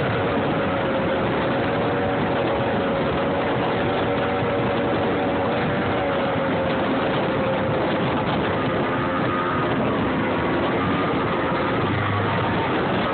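Motorboat running at speed: a steady engine drone with a faint wavering whine, under a constant rush of wind and water.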